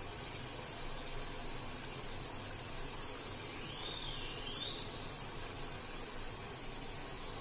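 Steady hiss from a pot of mutton simmering on a lit gas stove burner, with a short wavering whistle-like chirp about halfway through.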